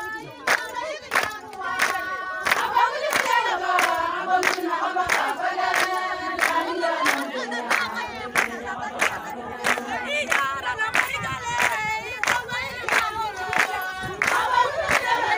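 A group of Nyangatom women singing together to steady hand-clapping, about two claps a second.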